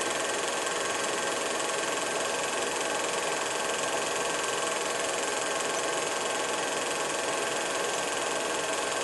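Steady hiss with a faint constant hum and no distinct events: the noise floor of an old film's soundtrack.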